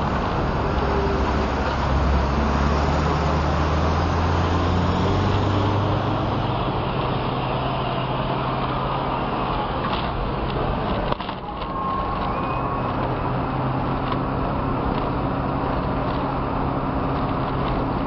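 School bus engine running with steady road noise, heard from inside the bus. The noise drops briefly about eleven seconds in.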